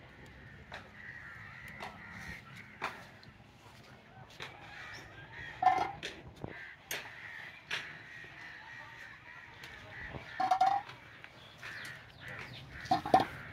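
A crow cawing three times, over light clicks of jujube fruits being picked and dropped into a steel bowl.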